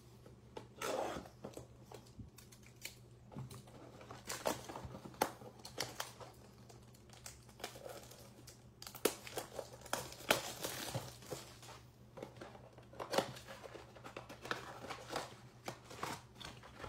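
Plastic shrink wrap crinkling and tearing as it is peeled off a cardboard baseball-card blaster box, in many short, sharp crackles and snaps. Near the end comes the box's cardboard flap being pulled open.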